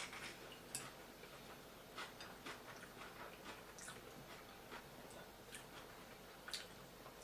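Faint eating sounds: irregular soft clicks and smacks of someone chewing food, spaced about half a second to a second and a half apart.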